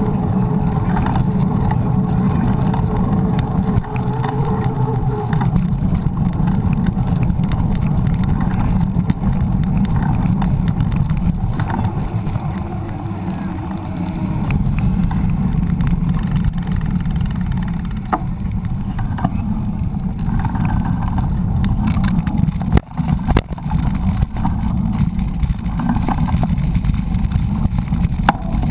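Wind buffeting and road rumble on a GoPro action camera's microphone as a mountain bike rides along a paved street, with motor traffic passing. Near the end come several sharp knocks as the bike jolts over rough pavement.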